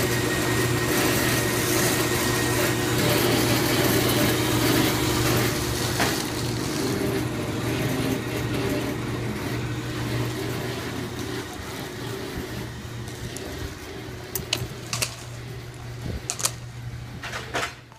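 Cellulose insulation blowing machine running steadily with a low hum and a broad rush of noise, loudest at first and fading after about eight seconds, with a few sharp clicks near the end.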